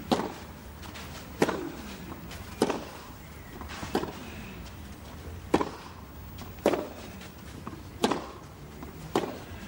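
Tennis ball struck back and forth by racquets in a baseline rally on a clay court. There are about eight sharp hits, roughly one every second and a quarter.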